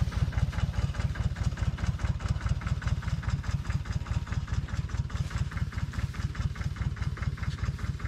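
An engine idling steadily with an even, rapid pulse.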